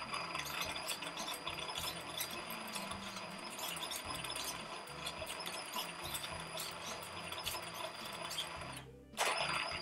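An RC car's brushless motor, driven by a VESC speed controller under joystick throttle, running the drivetrain with a steady high whine. It cuts off near the end, then runs again briefly.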